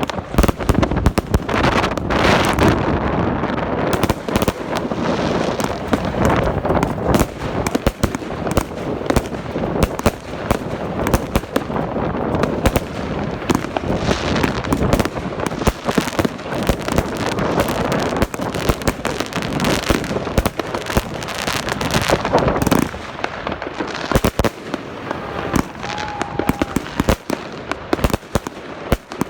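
Fireworks going off in a dense, continuous barrage of bangs and crackles, easing off a little after about 23 seconds.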